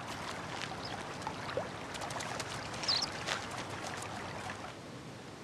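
Shallow stream water running, with small splashes and clicks as a European otter wades out onto a stony bank. A brief high chirp comes about three seconds in.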